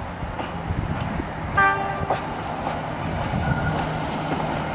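Victorian Railways K-class 2-8-0 steam locomotive K163 moving slowly with a steady low rumble. One short whistle toot sounds about one and a half seconds in.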